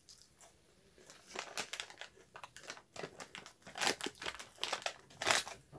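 Irregular crunching and crinkling from Doritos Dinamita rolled tortilla chips and their snack bag, starting about a second in.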